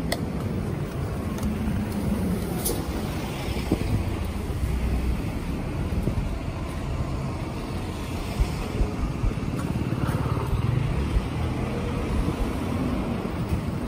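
Road traffic: cars passing on the street alongside, a steady low rumble with a few sharp clicks.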